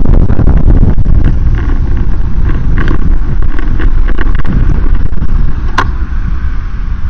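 Loud, steady rumble of wind and travel noise on a microphone moving with a vehicle, broken by scattered clicks. It eases slightly about five and a half seconds in, just before a single sharp tap.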